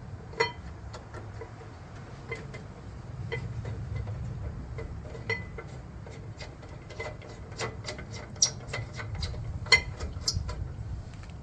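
Light metallic clicks and ticks of a brake caliper bolt being fed through the bracket and threaded in by hand, coming more often in the second half with one sharper click near the end, over a steady low hum.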